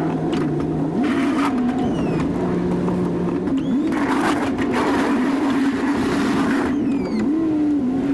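Chevy Silverado 2500 pickup engine running under a snow plow, its revs rising and falling repeatedly. A rushing noise builds in the middle for a few seconds.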